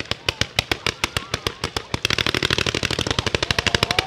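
Fireworks firing in a rapid volley of sharp bangs, about ten a second at first, then about two seconds in speeding up to roughly twice that pace and growing louder.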